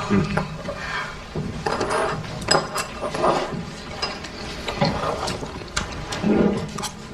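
Clicks and clatter of tableware during a meal: chopsticks and takeout containers knocking and tapping.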